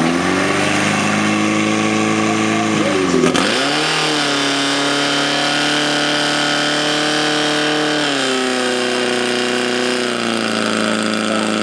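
A portable fire-pump engine running hard at high revs, driving water through the hoses. The revs dip sharply and pick back up about three seconds in, then settle a little lower around eight and again around ten seconds.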